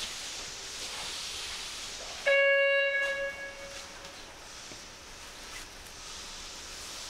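Steady hiss inside a subway car standing at a station. About two seconds in, a single electronic chime rings out loudly and fades over about a second and a half.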